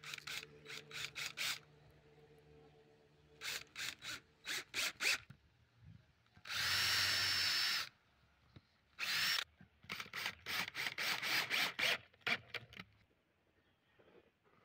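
Power drill driving screws into wooden boards in short trigger bursts, with one steadier run of about a second in the middle while drilling a pilot hole; the drilling stops near the end.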